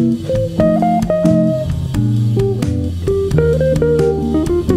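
Background music: plucked guitar notes over a bass guitar line.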